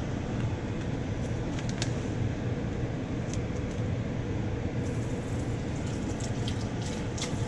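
A metal spoon scraping and tapping lightly a few times as food is spooned onto plated tacos, over a steady low mechanical hum.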